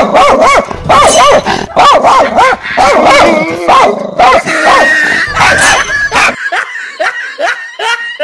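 Recorded dog barking played loud through a small portable loudspeaker: rapid, repeated barks about two a second, thinning out and quieter after about six seconds.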